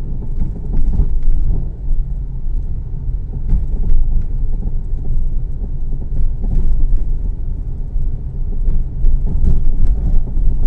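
Honda Civic being driven, with a steady low road and engine rumble heard from inside the cabin and a few faint knocks now and then.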